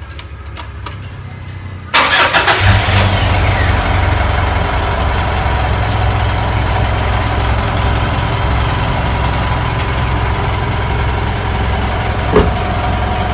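SUV engine started about two seconds in, then idling steadily: a cold start to warm the car up before driving.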